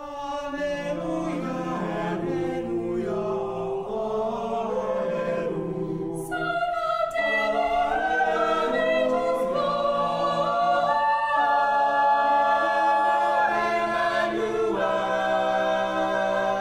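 A high school jazz choir singing slow, held chords in several parts, swelling louder about six seconds in.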